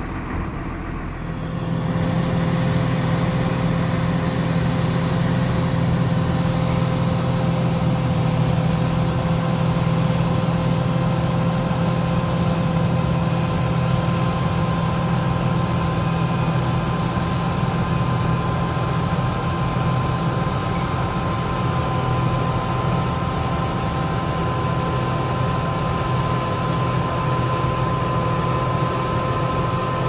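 Large farm-machinery engine running at a steady speed, with a low hum and a thin steady whine over it. It gets louder about a second and a half in.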